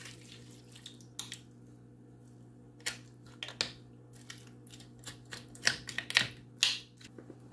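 Wooden spoon scraping and knocking against a slow cooker's crock as a piece of chicken is turned over in thin sauce: scattered short knocks and scrapes, more frequent in the second half, over a faint steady hum.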